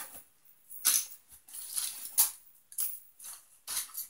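Small craft items such as wooden popsicle-stick pieces being handled and set down, making a series of short clatters and rustles about one a second.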